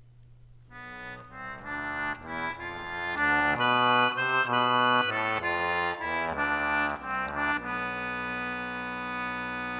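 A free-reed keyboard instrument of the accordion kind plays a short melodic phrase of separate notes, ending on a long held note from about eight seconds in. It sounds as a musical example of the Locrian mode.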